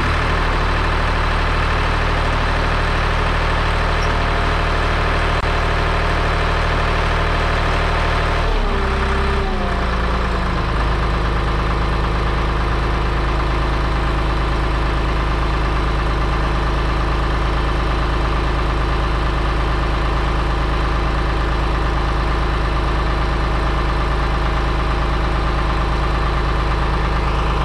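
New Holland L781 skid steer's Deutz F3L912 air-cooled three-cylinder diesel running after a cold start. About nine seconds in the engine speed drops, then it settles into a steady idle.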